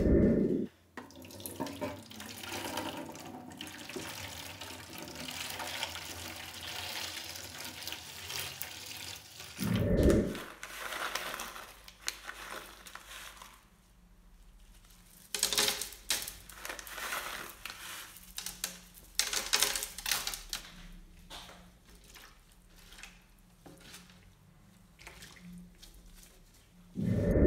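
Water poured into a plastic crate, then a gloved hand swishing and stirring the water to dissolve rust-remover crystals for a rust-soaking bath. A dull thump about a third of the way in, and another at the end.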